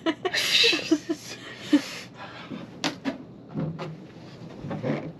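A squeegee wiping condensation off a boat's cockpit enclosure window: a rubbing hiss from about half a second in, lasting over a second, with short squeaks, then scattered clicks and knocks.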